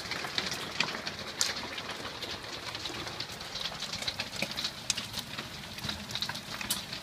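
Hail and rain drumming on an RV's aluminum roof, heard from inside: a steady hiss of rain with many irregular sharp hits from small hailstones.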